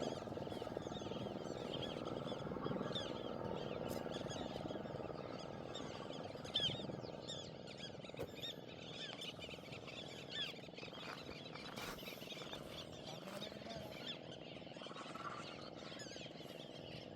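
Outdoor chorus of calling frogs and other small creatures: a dense, continuous mass of overlapping short high chirps over a steady lower murmur, with a few isolated clicks.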